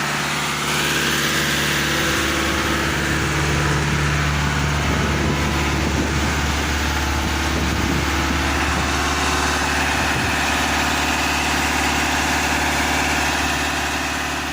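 Heavy diesel engine of a concrete mixer truck running steadily at idle.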